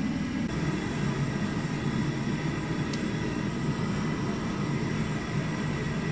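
Gas forge burner running steadily: a constant rushing noise with a low rumble beneath it.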